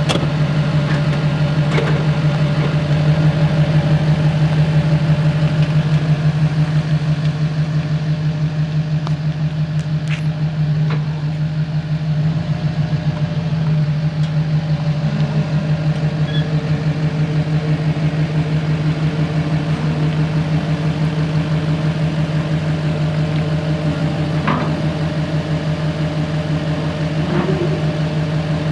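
An engine idling steadily with an even, pulsing hum, with a few faint clicks over it.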